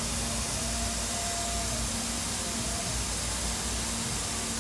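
MultiCam MG Series CNC router and its dust extraction running: a steady rushing of air with a faint low hum underneath.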